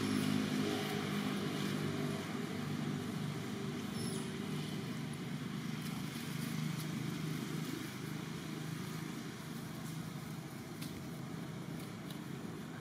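An engine running steadily, its low hum slowly growing fainter.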